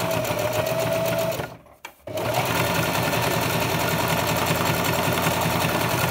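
Singer sewing machine stitching a one-step buttonhole, running steadily with a fast even stitching rhythm and a motor whine. It stops for a moment about a second and a half in, then starts again and runs on.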